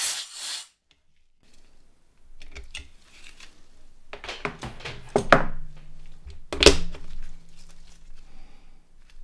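Clicks, knocks and scrapes of a phone's plastic parts being handled and fitted back together, with two louder knocks a little past the middle. A short hiss at the very start, and a low steady hum sets in about halfway through.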